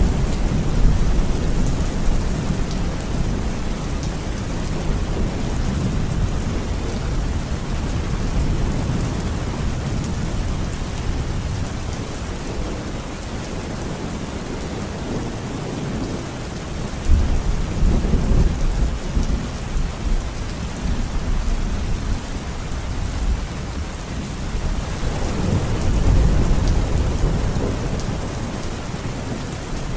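Heavy rain pouring steadily, with thunder rolling several times: a rumble at the start, a sudden louder roll a little past halfway, and another near the end.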